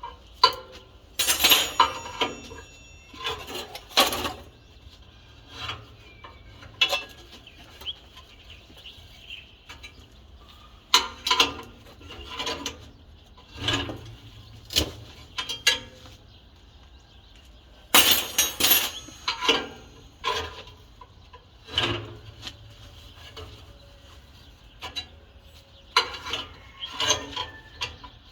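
Steel pieces clanking and clinking as they are handled and knocked together: irregular sharp metallic knocks, some ringing briefly, with a loud cluster near the start and another about two-thirds of the way through.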